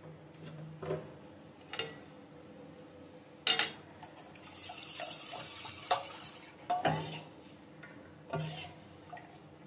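Metal utensil knocking and clinking against a frying pan on a gas stove, six or so separate knocks, with a brief hiss about four and a half to six seconds in.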